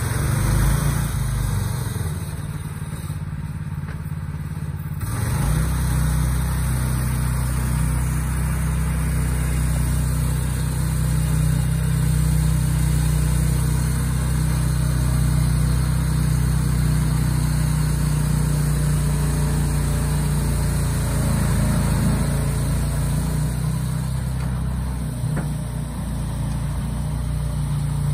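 Engine of a small lifted off-road pickup truck running as it crawls across rough ground, with a steady low drone. It is quieter for a few seconds, then louder from about five seconds in.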